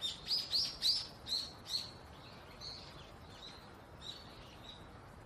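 Small birds chirping: a run of short, high chirps, loudest and quickest in the first two seconds, then fainter, sparser ones trailing off.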